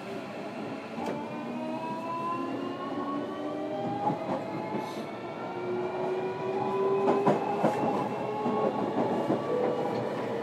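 Running sound inside a JR Kyushu 305 series electric train's motor car: several inverter and traction-motor tones climb steadily in pitch as the train accelerates, over wheel-and-rail noise with sharp clicks from rail joints.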